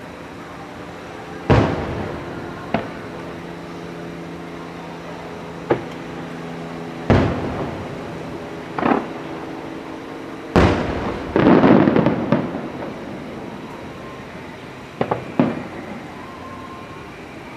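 Aerial fireworks shells bursting: a string of echoing booms at irregular intervals, about nine in all, with a dense patch of rapid crackling reports about two thirds of the way through.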